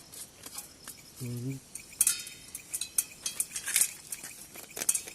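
Metal cookware and utensils clinking and knocking: a quick run of sharp clinks, some ringing briefly, starting about two seconds in.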